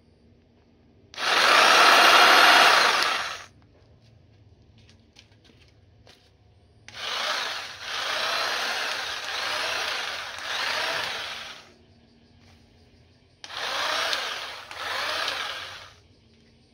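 TAKAGI corded electric mini hedge trimmer running in bursts while cutting grass: one loud run of about two seconds, then a longer run with short dips, then two brief runs near the end. Its whine wavers in pitch during the later runs.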